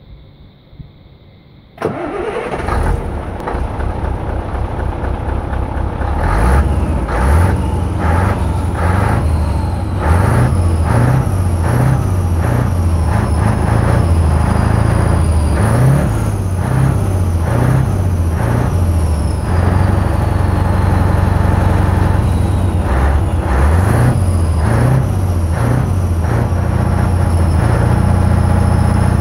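Scania 143 500's 14-litre V8 diesel starting up about two seconds in, then running and being revved in a series of short throttle blips.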